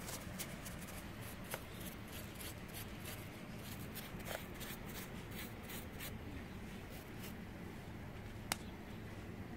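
Paintbrush stroking lime sulfur onto dry, pitted bougainvillea deadwood: faint, scratchy bristle strokes with a few light clicks over a low steady background.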